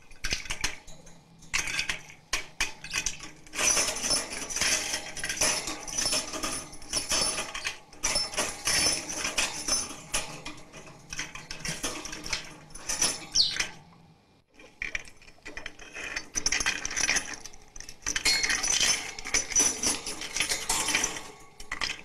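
Budgie knocking and rattling its cage toys: a rapid, uneven run of metallic clinks and jangles from a small metal bell and plastic toys against the cage wire, with a brief pause about two-thirds through.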